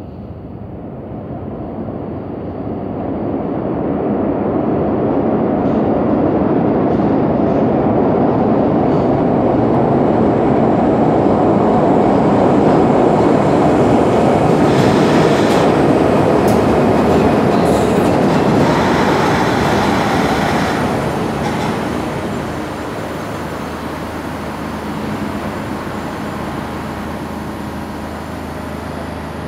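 A SEPTA Kawasaki BI-V subway train arriving at an underground station. The rumble of wheels on rail builds over the first few seconds and stays loud, with a few brief high-pitched squeals midway. It then dies down as the train stops, leaving a steady lower hum.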